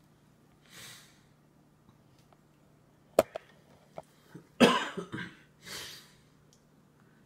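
A toddler coughs once, a short loud burst about two-thirds of the way through, with a couple of breathy sounds before and after. Just before the cough come a few sharp clicks of the spoon and fingers knocking the glass food container.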